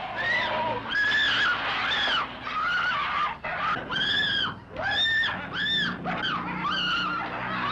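A woman screaming in terror again and again: short, high-pitched cries that rise and fall, about one a second, over a faint low hum.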